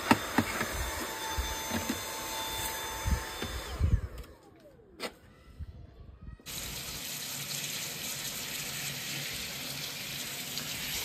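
A few seconds of knocks and clatter, then a short lull, then from about six and a half seconds a steady hiss of water running from a tap, as for filling a bath.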